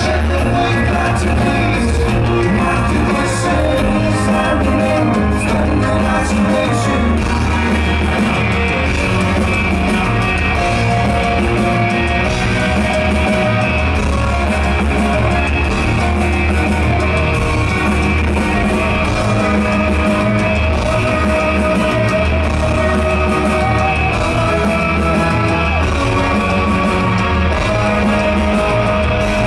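Rock band playing loud and live, with electric guitars, drums and singing, heard from within the crowd.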